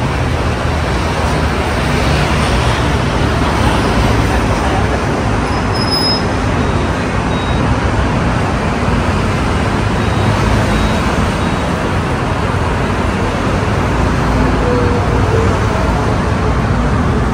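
Steady hum of city road traffic from the multi-lane avenue below: cars, motorbikes and buses passing in a continuous wash of noise.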